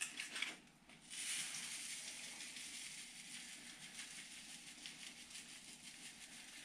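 Panko breadcrumbs sprinkled over fish fillets in a baking dish: a soft, steady patter of falling crumbs that starts about a second in.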